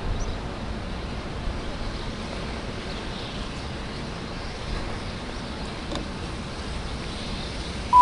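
Steady low outdoor background rumble with no distinct event. Right at the end, the first tone of a station announcement chime begins.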